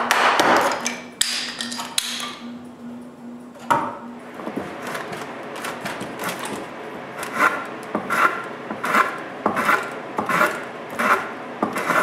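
Hand plane shaving the cheek of a timber tenon: a steady run of short rasping strokes, a little faster than one a second, through the second half. It opens with a burst of scraping and splintering as the waste between saw kerfs is broken out with a blade.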